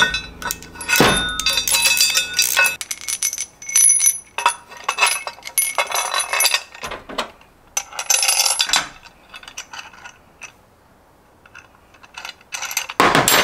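Steel bolts, washers and nuts clinking and clattering as they are handled and fitted onto a steel mounting plate, with tools being set down. The clinks come in several bunches and ring briefly; there is a short lull, then a louder clatter near the end.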